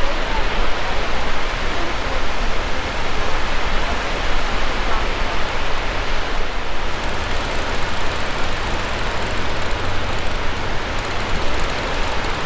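Steady rush of wind and breaking surf, with a heavy, fluttering rumble of wind on the microphone underneath.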